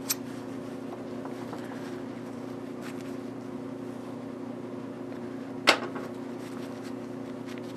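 Split aluminium slug mould being opened by hand: a few small metallic clicks as the collar comes off and the halves part, the sharpest about six seconds in, over a steady low hum.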